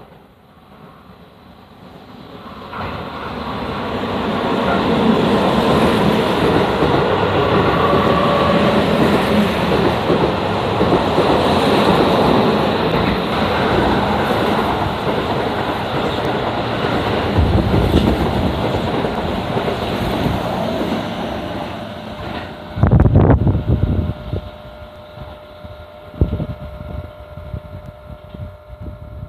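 Keihan Main Line electric train passing a level crossing. Its rolling noise builds over a few seconds, stays loud for about twenty seconds, then dies away, with two heavy low thumps near the end.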